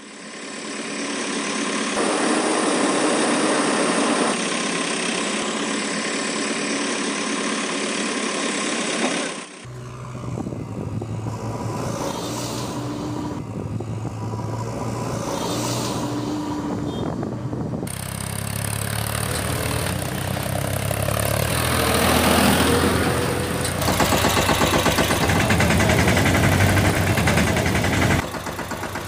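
Vehicle engine sound effects: an engine running and revving, changing to a deeper rumble about a third of the way in and shifting again a little past the middle.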